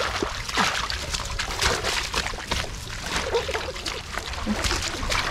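Hands digging and scooping in wet mud and shallow muddy water, with repeated irregular squelching and splashing.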